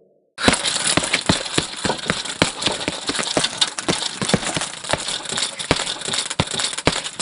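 Dense, irregular rattling clatter of many sharp clicks, starting suddenly about half a second in and running on steadily.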